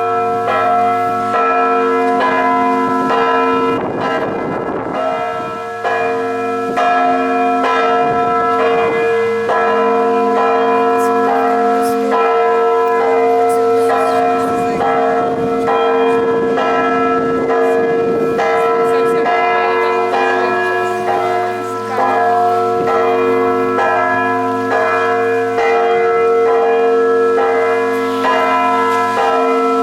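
Russian Orthodox monastery bells ringing a continuous peal: several bells struck again and again, their tones overlapping and ringing on over the deep hum of a large bell.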